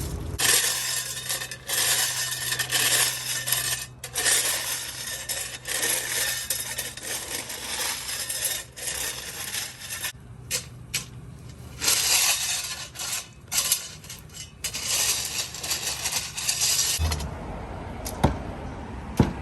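Metal digging tool scraping and clinking through gravel and rocks in repeated irregular strokes, as ground is dug out around a buried power line. A steady low hum runs underneath and stops near the end.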